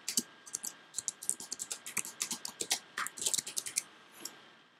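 Typing on a computer keyboard: quick runs of keystroke clicks, stopping about four seconds in.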